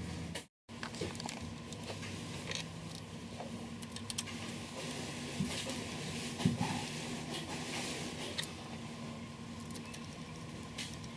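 Light metallic clicks and clinks of camshaft bearing caps and bolts being set by hand onto an aluminium V8 cylinder head, with a few sharper clinks among them. A steady low hum runs underneath, and the sound drops out briefly about half a second in.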